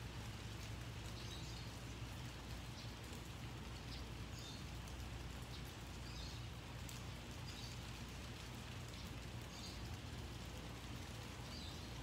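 Steady rain falling, with a small bird giving short high chirps at irregular intervals, roughly one every second or so.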